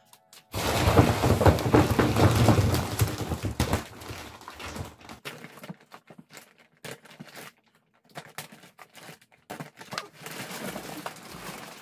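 Thick plastic mattress wrapping crinkling and rustling as it is handled, loudest for about three seconds starting about a second in, then scattered light rustles and taps with short pauses.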